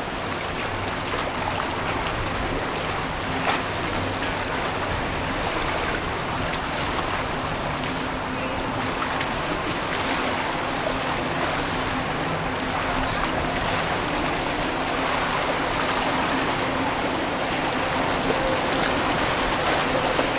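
Choppy inlet water rushing and splashing around a passing center-console boat, a steady wash with a low engine hum underneath. A brief knock about three and a half seconds in.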